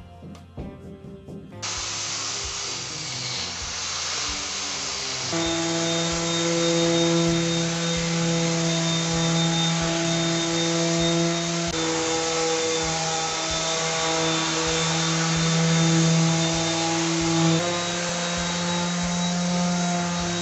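Electric random orbit sander running against bare wood: a steady hiss of sanding over a strong motor hum, starting about two seconds in after a moment of soft music. The hum's pitch shifts slightly twice.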